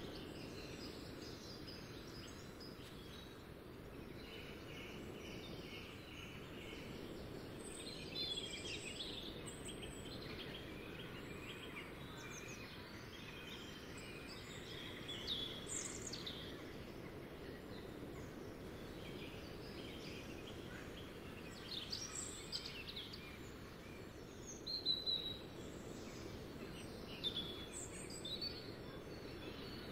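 Outdoor ambience: a steady low background noise with scattered bird chirps and calls. The chirps are sparse at first and come more often later, the loudest ones in the last few seconds.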